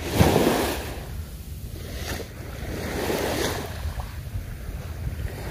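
Small waves lapping and washing up on a sandy shore, in surges that swell and fade, loudest just after the start and again about three seconds in.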